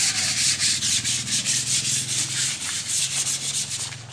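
Hand sanding of a concrete wall with 100-grit sandpaper, to smooth the surface for skim coat: scratchy back-and-forth strokes, about three or four a second, stopping just before the end.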